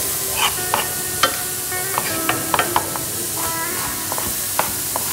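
Chef's knife chopping diced tomatoes on a wooden cutting board: irregular sharp taps, several in quick succession about two seconds in, over the steady sizzle of a frying pan on the stove.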